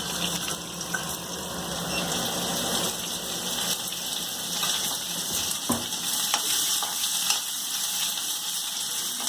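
Finely chopped onion frying in hot oil in a pan, a steady sizzle, with a few clicks of stirring against the pan.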